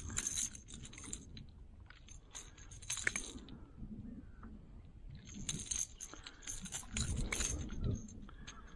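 Metal fishing pliers clinking against a lure's hooks and split rings while a small fish is unhooked: three bouts of light metallic jingling and clicking, with a few low bumps of handling near the end.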